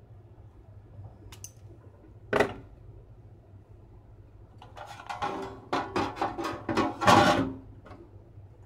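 A single sharp click, then a quick run of metallic clatters and knocks over about two and a half seconds, loudest near the end. The source is the sheet-metal lamp tray of a UV sterilizer box, carrying its tube holders and ballast, being handled and pushed into the box's housing.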